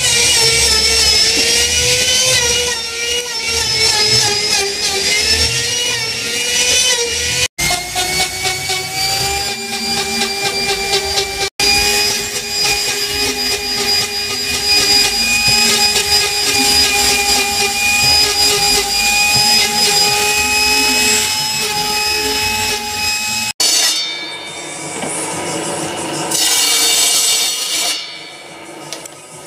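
High-speed electric power tools whining as they cut into hardwood. In the first clip the pitch dips and recovers with the load; later the whine runs steady. Abrupt breaks between clips, and a noisier, quieter cutting sound near the end.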